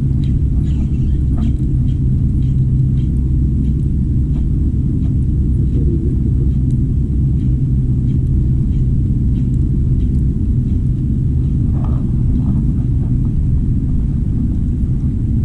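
Steady low rumble of wind buffeting the microphone, with faint scattered ticks above it.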